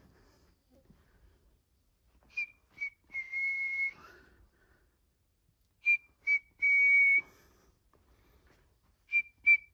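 High, clear whistle-like tones at one steady pitch: two short ones then a longer held one, the same short-short-long pattern again a few seconds later, then a run of quick short tones about three a second near the end.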